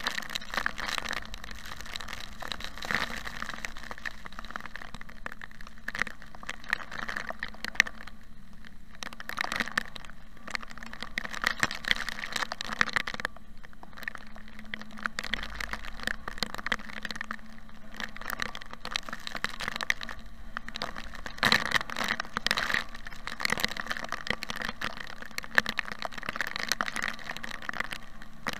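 Rain hitting a car's windshield and roof while driving, heard from inside the car: a dense, irregular patter of sharp drop hits over road noise. It eases briefly twice in the middle.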